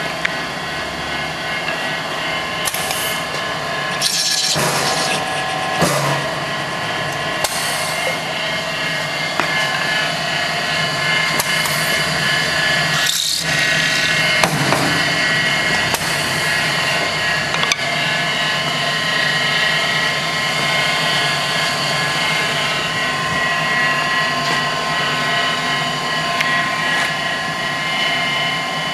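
Horizontal wooden screw machine running with a steady motor whine. Several short, louder noisy passages come every few seconds as the cutter threads the ends of wooden dowels.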